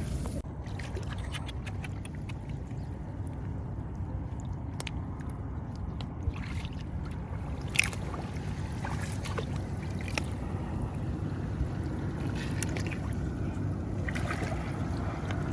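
Steady low wind rumble on the microphone, with a few short clicks, the sharpest about six and eight seconds in.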